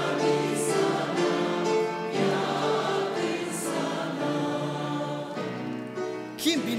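A congregation or choir singing a hymn together in long held notes. Near the end the singing dies away and a man's voice begins speaking.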